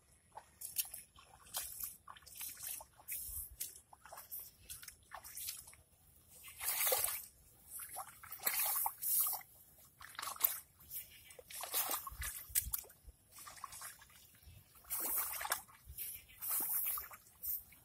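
The nail assembly of a nail weeder on a bamboo handle, dragged back and forth through muddy shallow water between transplanted rice rows. It sloshes and splashes in irregular strokes as it churns the mud to uproot young weeds.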